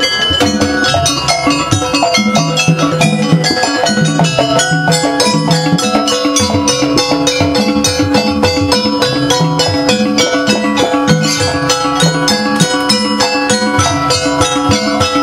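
Jaranan Buto dance music: a Javanese gamelan-style ensemble of drums and metal gongs and keyed percussion playing a fast, dense beat, with a steady held high note over it.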